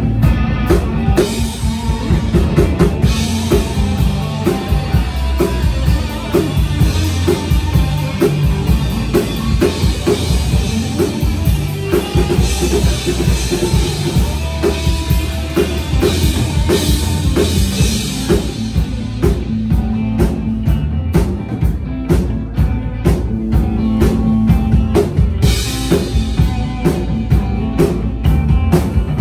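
A live rock band playing, with the drum kit driving a steady beat and cymbals washing over much of the passage.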